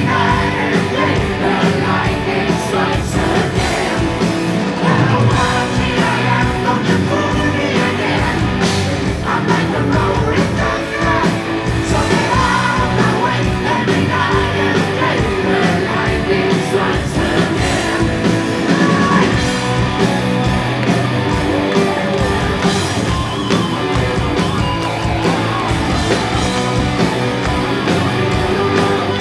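Heavy metal band playing live and loud: electric guitars and drums under a lead vocal, with a guitarist singing backing vocals.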